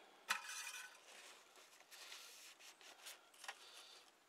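Oil dipstick pulled from a Kawasaki STX-15F jet ski's engine to check the oil level after refilling, with a short squeak as it comes free about a third of a second in. Faint rubbing and rustling of a paper towel wiping the dipstick follows.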